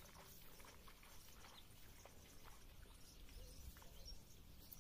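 Near silence: faint outdoor ambience, with a few faint, short bird chirps scattered through it.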